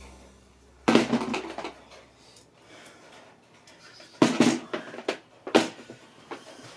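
A few sharp clattering knocks of hard objects being handled and set down: loud ones about a second in, about four seconds in and about five and a half seconds in, with smaller taps between.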